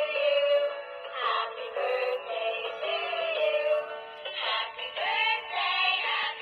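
Interactive toy rabbit playing a song in a high, electronic singing voice through its small built-in speaker, thin with no bass, triggered by pressing the toy's back.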